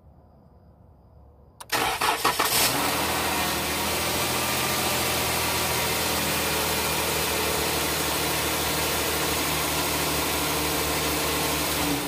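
2013 Jeep Grand Cherokee engine cranking for about a second, starting a couple of seconds in, then settling into a steady idle. It starts because the electric fuel pump is now powered through a fuse-tap jumper from the auxiliary power fuse, bypassing the fuel pump relay that caused the crank-no-start.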